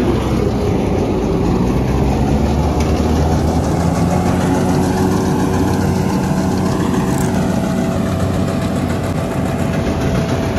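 Tractor engine running steadily with a tractor-driven straw reaper: a loud, even engine hum under a rushing noise.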